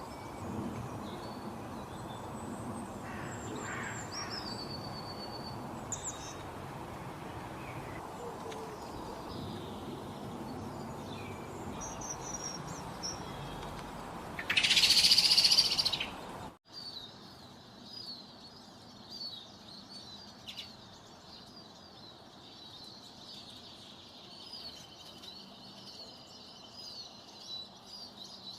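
Wild birds chirping and calling over a steady outdoor background hiss. About halfway through, a loud harsh sound lasts about two seconds. The sound then cuts abruptly to many small birds chirping busily, with a steady high trill near the end.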